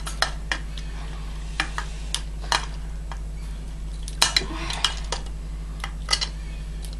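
Plastic parts of a Transformers Voyager Megatron action figure clicking and clattering as they are twisted, unclipped and pried apart by hand, with scattered sharp clicks and a few louder clusters near the middle and toward the end, over a steady low hum.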